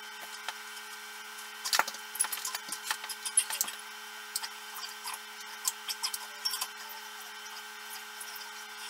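Hands handling wiring and small tools: scattered clicks and rustles, busiest from about two to four seconds in, over a steady low hum.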